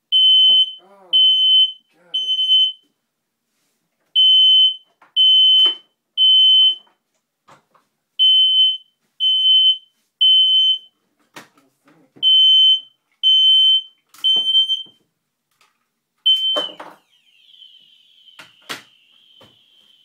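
Smoke alarm sounding its high-pitched three-beep evacuation pattern, three beeps then a pause, over and over: the detector has sensed smoke, which is what trips the disconnector to cut power to the outlet. Sharp clicks and knocks of the detector being handled come in between, and the beeping stops about two-thirds of the way through as it is taken off its mount.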